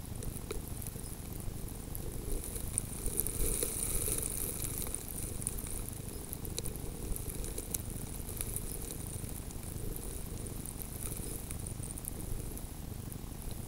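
Wind rumbling on an outdoor microphone set at snow level, with faint high crackles and ticks, thickest about three to five seconds in.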